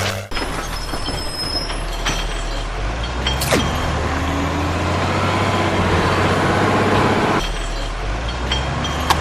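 Heavy-vehicle engine sound: a steady low drone with scattered clicks, and a quick falling squeal about three and a half seconds in.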